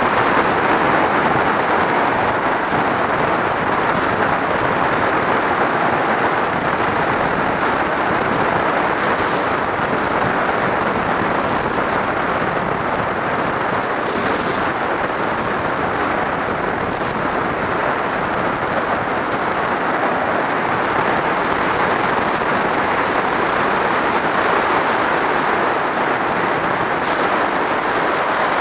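Steady rush of wind over a helmet-mounted camera on a motorcycle cruising at road speed, with the engine and tyre noise blended in underneath.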